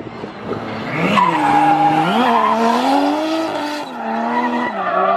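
Drift car's engine revving hard while the car slides, its pitch rising and falling with the throttle, over the noise of the rear tyres skidding on the pavement. The engine comes in strongly about a second in.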